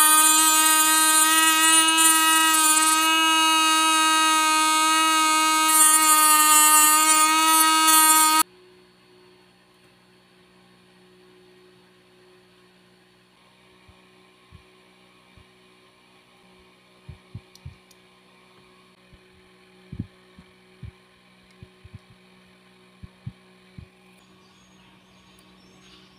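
Hand-held electric mini drill running at a steady speed with a loud high whine, drilling into a clear plastic tube, then cutting off abruptly about eight seconds in. After that only a faint low hum with a few light clicks of small parts being handled.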